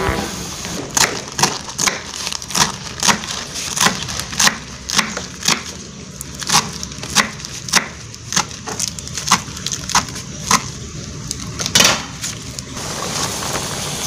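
Knife chopping sawi (Chinese mustard greens) on a cutting board: sharp knocks at about two a second, stopping near the end.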